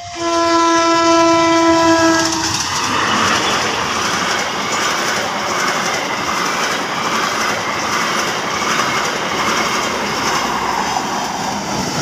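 Diesel-electric locomotive (CC 204) sounding its multi-note horn for about two and a half seconds, a warning for a level crossing, then the train's passenger coaches passing close by with wheels clattering steadily over the rails.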